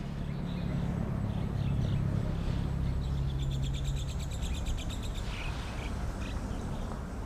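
A rapid, high chirping trill of about ten chirps a second, lasting a second or two near the middle, over a steady low hum.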